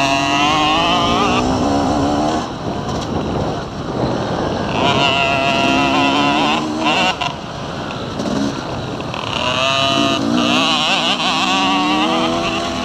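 Dirt bike engines revving hard on a dirt track, the pitch climbing in three long pulls under acceleration with dips between as the throttle is rolled off.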